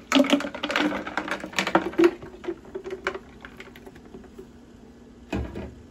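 Blended horchata poured into a glass pitcher over ice, with a quick patter of small clicks and crackles from the liquid and the ice that thins out after about three seconds. A single dull knock near the end.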